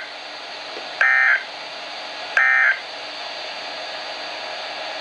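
Emergency Alert System End-of-Message data bursts on NOAA Weather Radio: the tail of one short screechy digital burst at the very start, then two more identical bursts about a second and a half apart, with steady radio hiss between and after. The three bursts signal that the warning message is over.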